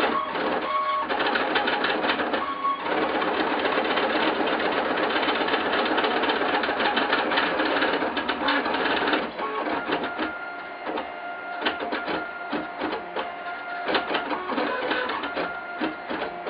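Trinity Labs Aluminatus 3D printer at work, its stepper motors buzzing in quickly changing pitches as they drive the lead-screw axes through rapid moves. About halfway through the sound drops quieter and breaks up into separate tones and clicks.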